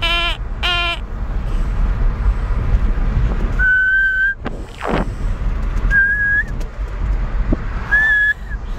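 A person whistling three short, steady notes a couple of seconds apart over the low, steady rumble of road and engine noise inside a moving Kia. A voice making short wavering sounds trails off in the first second.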